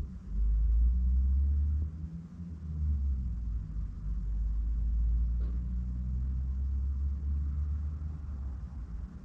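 Low rumble of a moving car heard from inside the cabin, from road and engine noise. It is loud at the start, dips briefly after about two seconds, then swells again.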